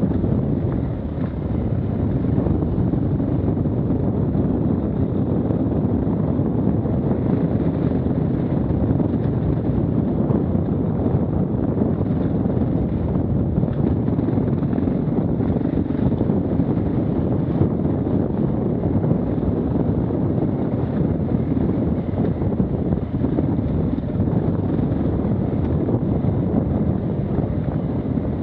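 KTM 690 Enduro R's single-cylinder engine running steadily while riding, largely buried under heavy wind rumble on the microphone.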